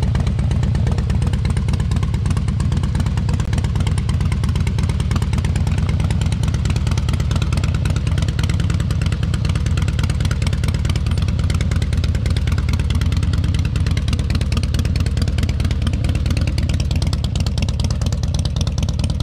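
Motorcycle engine running steadily under way, heard from on the moving bike with wind and road noise over it.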